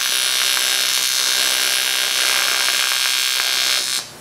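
AC TIG welding arc on thick aluminum, shielded with a 50/50 helium–argon mix, buzzing steadily with a crackling hiss while filler rod is dabbed into the puddle. The arc cuts off abruptly near the end.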